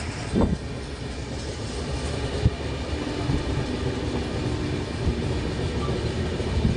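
Moving passenger train: a steady low rumble of wheels on track, with a few sharp knocks and clacks.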